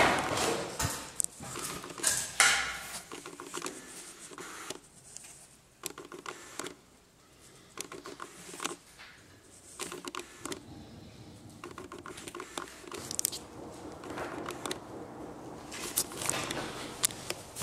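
Scattered light knocks, clicks and rustles of a handheld camera being carried about and handled, with one louder knock about two seconds in.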